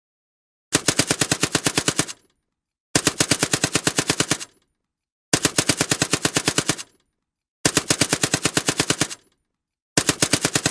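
Browning M1919 machine gun firing in short bursts of about a second and a half, with rapid, evenly spaced shots. There are four full bursts, and a fifth begins near the end.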